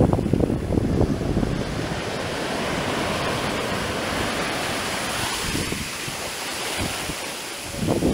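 Ocean waves breaking on a black-sand beach and the foamy wash rushing up the shore, a steady hiss that swells through the middle. Wind buffets the microphone in the first second or so and again near the end.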